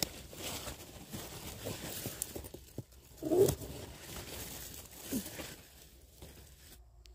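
Grass and pumpkin vines rustling and tearing as a pumpkin is pulled from its vine, with a louder burst a little over three seconds in.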